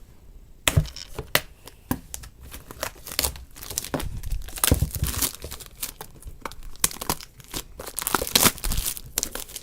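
Plastic shrink wrap being torn and pulled off a cardboard toy box, with dense crinkling and crackling. It starts about a second in and comes in irregular flurries.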